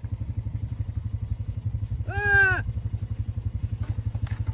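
An idling engine runs with an even low pulse of about ten beats a second. About two seconds in, a man gives one short, loud shout at the fighting bulls.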